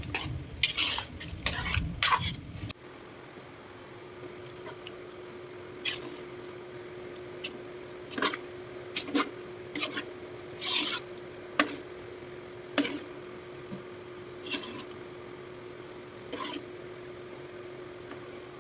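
A spoon stirring chili in a cooking pot. A dense run of stirring knocks and scrapes in the first few seconds, then single spoon scrapes and clinks against the pot every second or so over a steady low hum.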